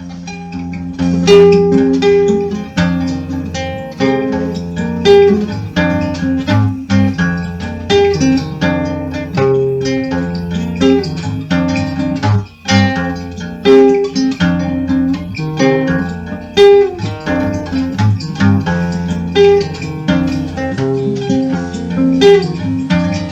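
Dark folk music: a plucked and strummed acoustic guitar over a steady low drone, starting abruptly after a quiet moment.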